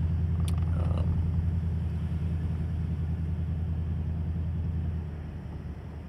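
Steady low rumble of a Toyota Tundra TRD Pro pickup driving on a sand road, heard from inside the cab; it eases off a little near the end.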